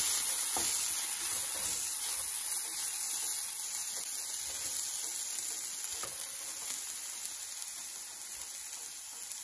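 Diced carrots sizzling in a hot stainless steel pan while a wooden spatula stirs them, with a few light scrapes. The sizzle eases off gradually toward the end.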